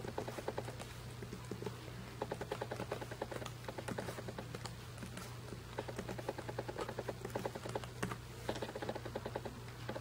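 Typing on a Lenovo S10 netbook's keyboard: quick runs of light key clicks with short pauses between them.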